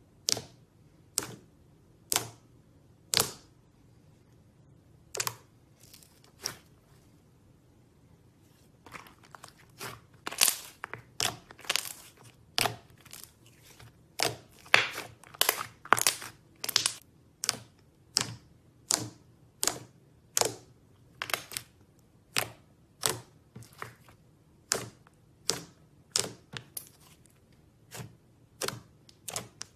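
Fluffy slime being poked, squeezed and folded by hand, giving sharp wet pops and clicks. They come about once a second at first, crowd together in quick runs from about a third of the way in, then space out to about one a second again.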